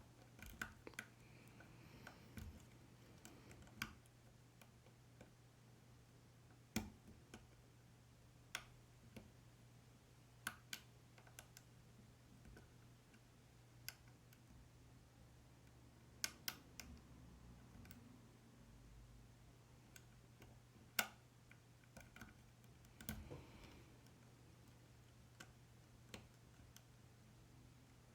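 Faint, irregular metallic clicks and ticks of a hook pick working the pin stack inside a Yale 500 lock cylinder under light tension, single clicks a second or more apart, a few sharper than the rest.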